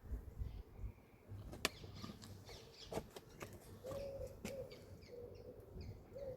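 A pigeon cooing softly in repeated low phrases from about four seconds in, with small birds chirping faintly. There are a few sharp clicks and knocks from handling earlier on.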